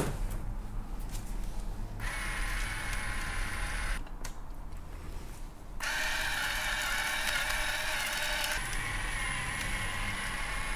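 Salt and pepper grinder grinding over a plate, in two spells of a few seconds each, the second starting about halfway through, after a sharp click at the very start.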